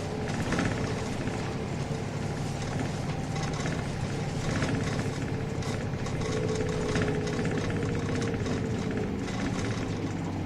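Interior running sound of a Nissan Diesel Space Runner RM city bus with a five-speed manual gearbox: the diesel engine and drivetrain running steadily under way, with rattles from the body. A whine comes in around the middle and falls slightly in pitch before fading.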